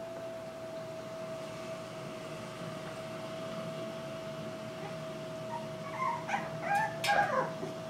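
Black-and-tan Jack Russell terrier puppies giving short whimpers and yips in the last couple of seconds, with a sharp click among them. A steady hum runs underneath throughout.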